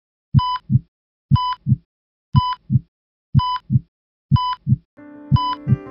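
Heart-monitor sound effect: a lub-dub heartbeat about once a second, each beat with a short electronic beep, six times. Sustained music comes in under the last beat about five seconds in.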